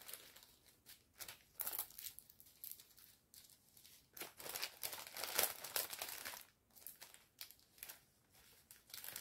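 Small plastic bags of diamond-painting drills rustling and crinkling as they are packed back into a plastic pouch, in short irregular bursts.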